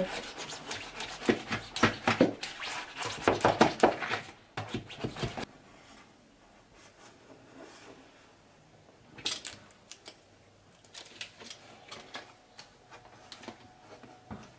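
Adhesive vinyl film being rubbed and pressed flat onto a kitchen unit to force out air bubbles: a fast run of scratchy rubbing strokes and crackles for about five seconds, then only a few faint scattered scrapes and clicks.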